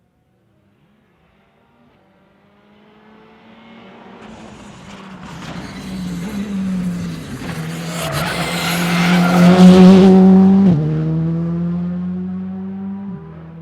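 A rally car at racing speed on a tarmac stage, its engine growing steadily louder as it approaches, loudest about ten seconds in. The engine note then drops sharply twice as it goes through the bend and pulls away.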